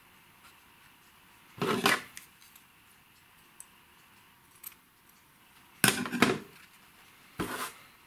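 Scissors and foam fishing lures handled on a tabletop: three short bouts of clattering and knocking, about two seconds in, near six seconds and shortly before the end, with a couple of faint clicks or snips between.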